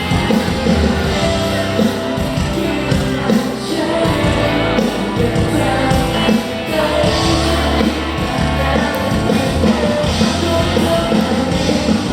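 Live band playing amplified rock music with a singer, heard through a concert PA.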